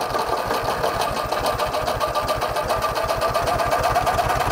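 An old tractor's diesel engine, low on compression, being cranked by its starter with a fast, even clatter and a whine that rises a little in the second half. A handheld hair dryer runs alongside, blowing warm air into the intake to help it start.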